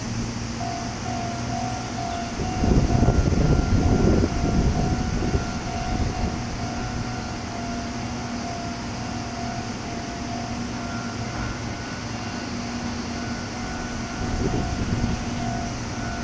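Railway station sound: a steady electric hum with a thin high tone that breaks off and returns. There is a louder rush of noise about three to five seconds in and a shorter one near the end.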